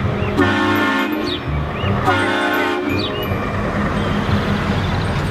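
Scania R520 cement-mixer truck sounding its air horn in two chord-like blasts, each about a second long, over the steady rumble of its diesel engine.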